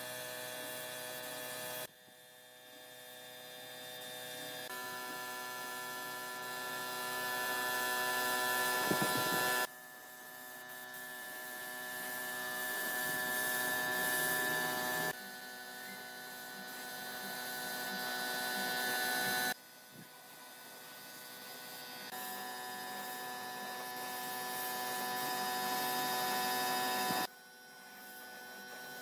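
Electric power tool motor running with a steady whine, heard in several cut-together stretches, each one slowly growing louder and then breaking off abruptly.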